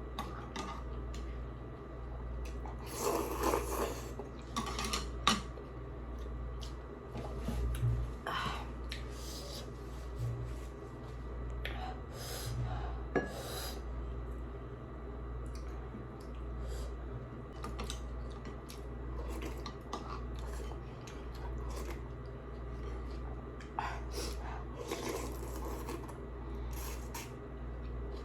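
Mukbang eating sounds: cutlery clinking and scraping against bowls and dishes in short, scattered clicks and bursts, over a steady low hum.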